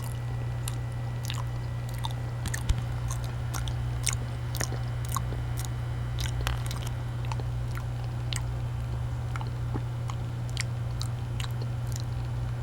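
A person chewing a mouthful of banana, with many small wet mouth clicks and smacks scattered throughout, over a steady low hum.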